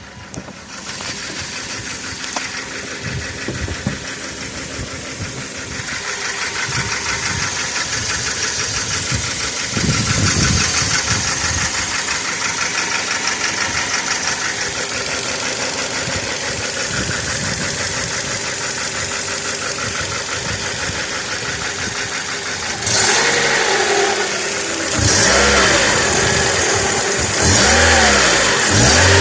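Kia Rio (second generation, JB) engine running with a fast, even ticking chatter, then revved up and back down a few times near the end. The owner takes the noise for chattering fuel injectors and noisy hydraulic lifters.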